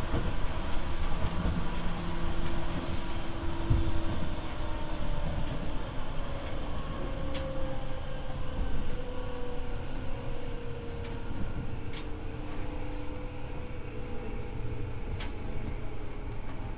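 Seibu 301 series resistance-controlled electric train running, heard from inside motor car MoHa 301-10: a steady rumble of wheels on track with a traction motor and gear whine that slowly falls in pitch as the train slows. A few sharp clicks cut through.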